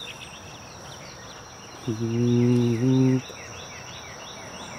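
Insects calling: a steady high-pitched buzz with a quick, repeating falling chirp. About two seconds in, a man hums briefly on two steady notes.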